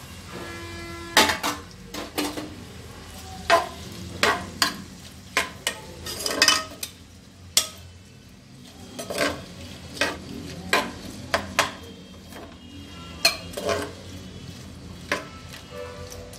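A spoon stirring sliced onions and green chillies frying in ghee and oil in an aluminium pressure cooker, knocking and scraping against the pot's sides at irregular intervals over a faint sizzle.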